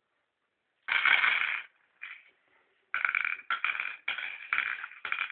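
Small glass mangala stones clattering and clinking as they are scooped from the board's pits and dropped in. There is one burst about a second in, then several in quick succession from about three seconds on.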